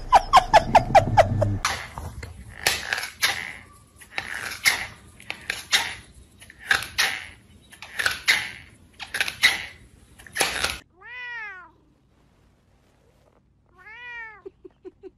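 A quick run of clicks, then repeated rasping scrapes about once a second, then a cat meowing twice, each meow rising and falling in pitch, the second ending in a short stuttering trill.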